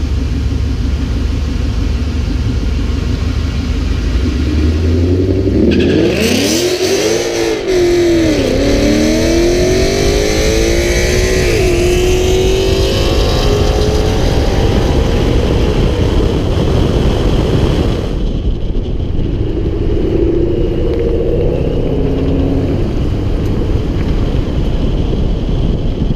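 Supercharged Ford 5.0 V8 of an F-150 running steadily, then launching about six seconds in and accelerating hard through the gears, its pitch climbing and dropping back at each shift. The run eases off about eighteen seconds in.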